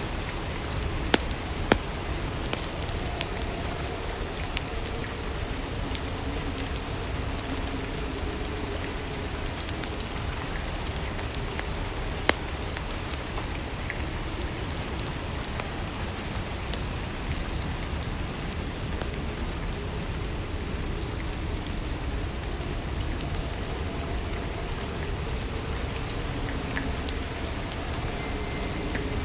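Steady rainfall ambience: an even rushing patter with scattered sharp ticks of drops, a few of them stronger.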